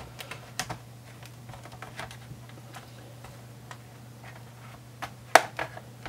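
Plastic pry tool working along the seam of an Acer Aspire F5-571 laptop's plastic base, with sharp plastic clicks as the snap clips between base and palm rest let go: a few scattered clicks, then a quick cluster of louder ones near the end.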